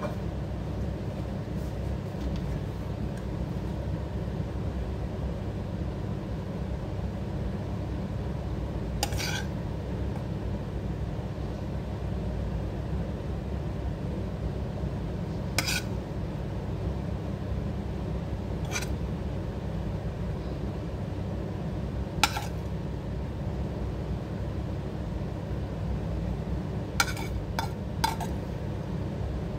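A metal spoon clinking against a stainless steel cooking pot and frying pan as shrimp are spooned onto rice: a few sharp single clinks spread apart, then three close together near the end, over a steady low hum.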